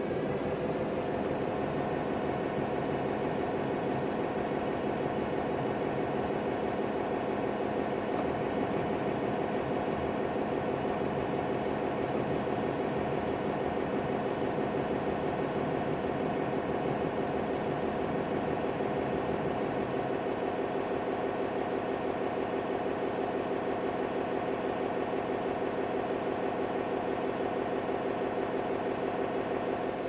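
Narwal Freo base station washing the docked robot's mop pads: a steady motor hum with the spinning mops scrubbing, running on until the wash cycle finishes.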